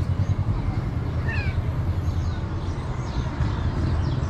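A cat gives one short, falling mew about a second and a half in, over a steady low rumble.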